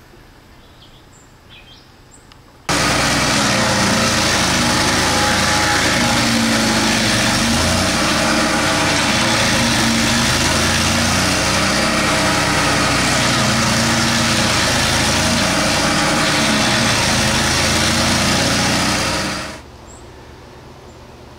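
Bandit tracked stump grinder's engine running while its cutting wheel grinds down an oak stump: a loud steady drone with dense grinding noise, starting suddenly about three seconds in and dropping away near the end. A few faint bird chirps come before it.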